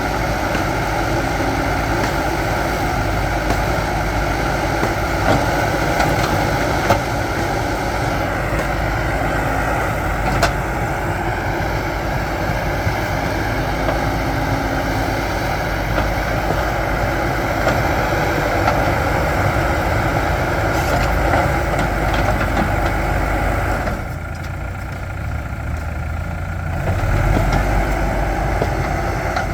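Backhoe loader's diesel engine running steadily while working. It drops quieter about 24 seconds in, then picks up again shortly after.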